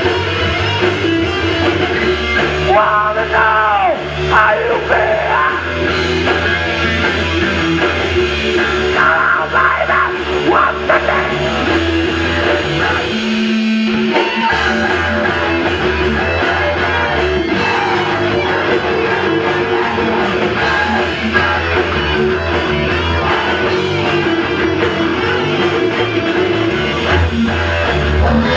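Live rock band playing an instrumental passage: electric guitar and drums, with the lead guitar bending notes about three seconds in. The low end drops out briefly around the middle before the band comes back in.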